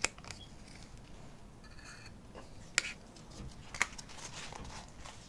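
A few light, sharp clicks and taps of acrylic paint bottles and small plastic cups being handled while paint is added to the cups.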